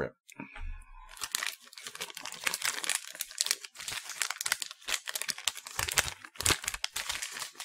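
Tough plastic snack wrapper crinkling and tearing as it is slit open with a razor blade and pulled apart: a dense run of irregular crackles.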